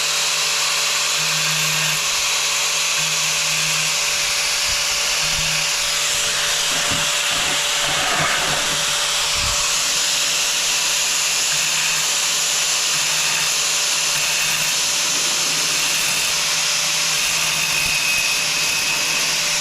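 Angle grinder running steadily while grinding a round hole into the face of a hard tile.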